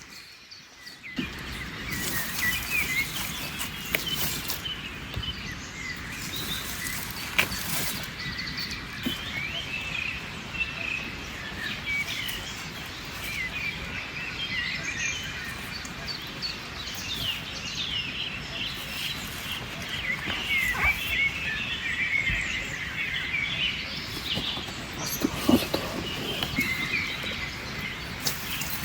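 Many small birds chirping and singing over a steady outdoor hiss, with a few brief knocks.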